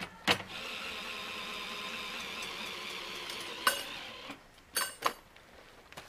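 A steady hiss for about three seconds, then a sharp metallic clank that rings briefly, followed by two lighter clinks a second later, from metal hardware being handled while a folding tent trailer is packed up.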